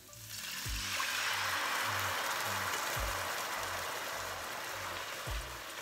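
Coconut milk poured from a tin into a hot pan of fried onions, garlic and spices, hissing and sizzling as it hits. The hiss swells about a second in, then slowly eases. Background music with a steady beat plays underneath.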